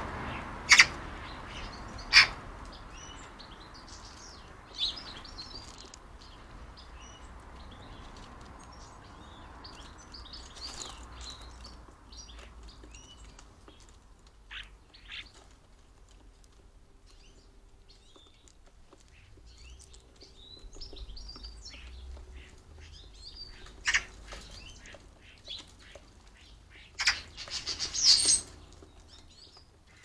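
Small birds chirping on and off, with a few loud sharp taps on the wooden bird table as European starlings and a wood pigeon feed on seed, and a loud flurry of calls and wing flaps near the end.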